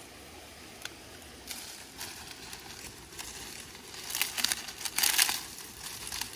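Dry rustling and crinkling in irregular bursts, loudest and densest about four to five seconds in, over a steady low background hiss.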